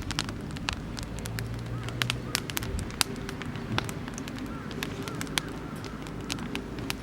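Oak firewood burning in a campfire, crackling with many irregular sharp pops.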